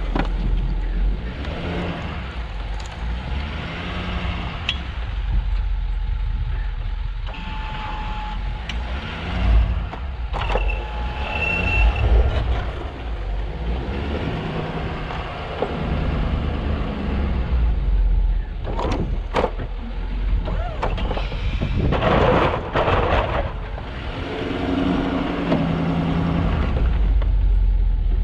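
Snow-plow truck's engine running through changing loads, with scattered knocks and clatter.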